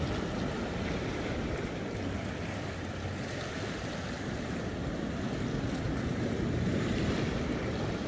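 Sea waves washing and breaking over shoreline boulders: a steady rushing surf that swells a little near the end.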